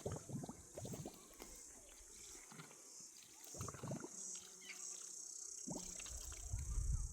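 A steady high insect chorus, with scattered rustling and light knocks.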